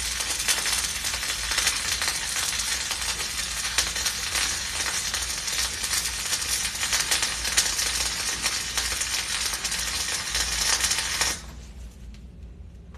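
Flux-core arc welding: the wire-feed arc's steady, dense crackle while laying a horizontal fillet (2F) bead, cutting off suddenly about eleven seconds in as the arc is broken.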